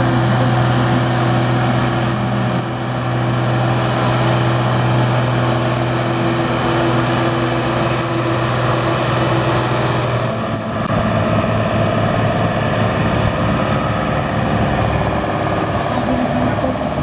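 Big tractor diesel engine, from a blue Ford pulling tractor, running loud at a steady pitch. About ten seconds in, the steady note gives way suddenly to a rougher, uneven engine sound.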